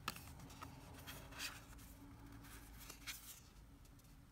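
Faint handling of tarot cards: a few soft taps and a brief scrape of card stock as a card is picked up and held.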